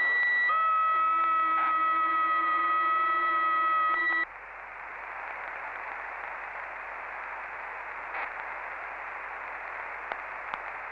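CB radio receiver on 27 MHz carrying a cluster of steady electronic tones that cut off abruptly about four seconds in. The channel then falls back to open-squelch static hiss with a few faint clicks.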